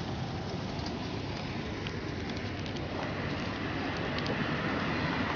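Street traffic: cars driving past on the road, a steady rush of engines and tyres that grows slowly louder toward the end.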